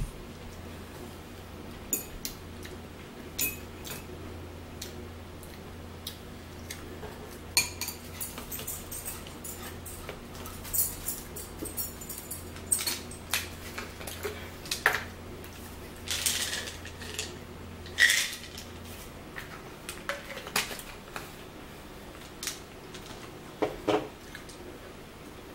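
Metal forks clicking and scraping against dishes as people eat, in scattered sharp clicks, over a low steady hum that stops about three-quarters of the way through.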